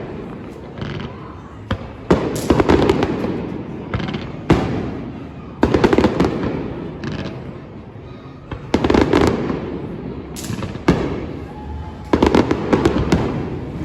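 Aerial fireworks bursting one after another, roughly every one to two seconds, each sharp bang trailing off in a crackling rumble.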